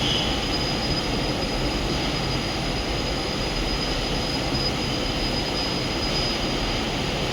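Water of an outdoor waterfall fountain cascading and splashing: a steady, even rushing noise, with a thin steady high tone above it.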